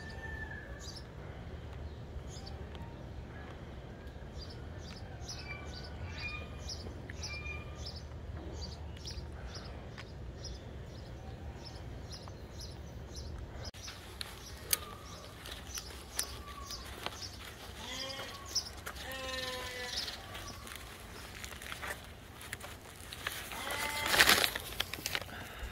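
Small birds chirping, then a series of bleats from farm animals, the loudest bleat near the end.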